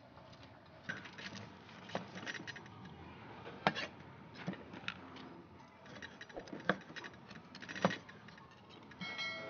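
Cleaver chopping grilled beef on a wooden chopping board: about five sharp knocks a second or two apart, with lighter clatter of the blade and fork between.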